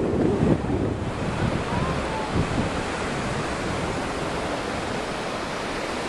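Ocean surf breaking and washing up the beach, a steady rushing hiss, with wind buffeting the microphone in the first second.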